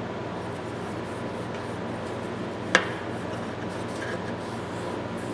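A towel rubbing over a metal ratchet, wiping off cold-bluing solution, over a steady background hum. One sharp click comes a little past halfway.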